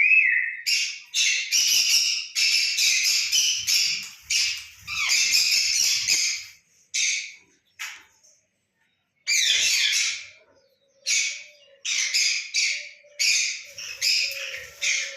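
Pet parrot squawking: a rapid series of harsh, raspy screeches, broken by a short pause just past the middle before starting again.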